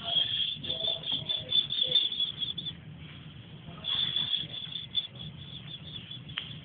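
High-pitched chirping in fast pulses, in two spells of a few seconds each, over a low steady hum.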